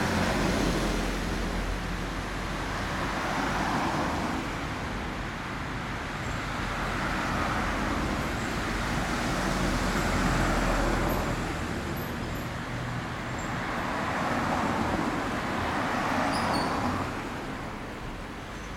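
Distant road traffic: a steady hiss with a low rumble that swells and fades every few seconds as vehicles pass.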